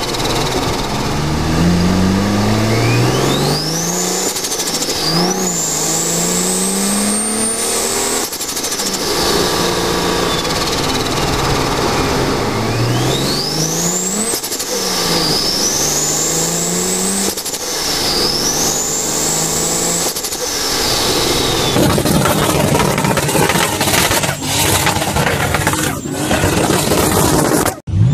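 Turbocharged car engine accelerating hard through the gears, its pitch climbing in each gear, with a high turbo whistle that rises, dips at each shift and climbs again. Near the end the whistle fades and a run of rapid chattering pulses follows.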